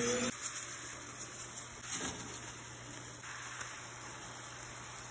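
Pan of tomato, onion and cashew gravy simmering with a steady faint hiss, with one light knock about two seconds in.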